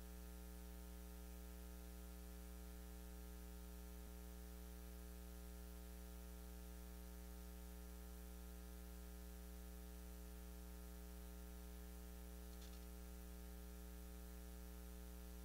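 Steady electrical mains hum with faint hiss, the only sound in a near-silent stretch.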